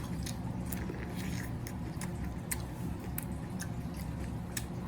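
Close-miked eating of a seafood boil: chewing and biting with small wet clicks and smacks every so often, over a steady low hum.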